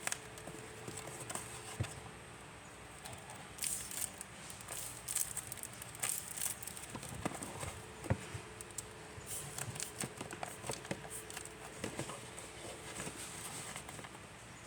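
Hands packing an order of squishy toys and stickers: plastic packaging and paper items rustling and crinkling, with irregular light taps and clicks as they are handled, busier after the first few seconds.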